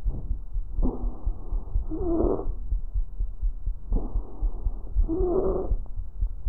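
Lung sounds recorded through a stethoscope: two breaths about three seconds apart, each a rush of airflow ending in a wavering musical tone, the adventitious sound of a wheeze or rhonchus that signals narrowed airways. Dull low thumps run underneath.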